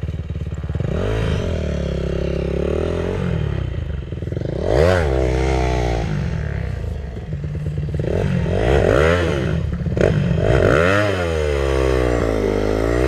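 Dirt bike engines: a steady idle underneath while a bike is revved in several blips, each rising and falling in pitch over one to two seconds.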